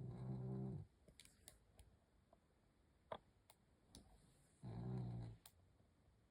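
Snoring: two long, low snores about four and a half seconds apart, each lasting just under a second, with a few faint clicks in between.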